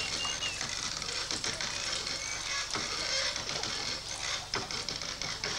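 Rope-and-pulley well gear creaking and clicking irregularly as a leather well bucket is hauled up, with a faint squeak, over a steady hiss.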